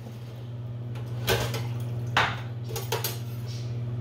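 Metal pots and utensils clanking about three times as cookware is handled, over a steady low hum.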